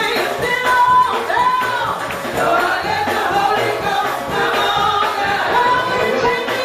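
Gospel choir singing praise music with instrumental accompaniment under held, steady chords.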